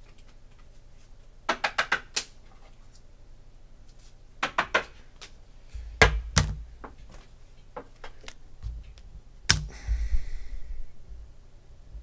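Two quick runs of clicks, typical of typing on a computer keyboard, then a few knocks and thuds of things set down on a desk, and a short rustle about ten seconds in.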